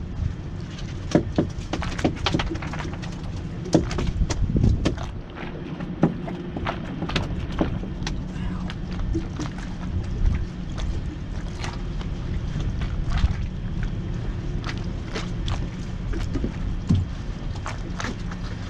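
Irregular knocks and taps around a small fishing boat over a steady low hum.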